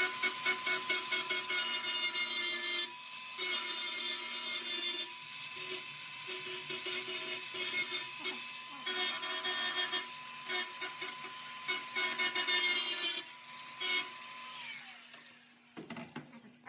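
Handheld power tool spinning at a steady high pitch with a harsh cutting or grinding rasp that comes and goes in several passes, then winding down near the end.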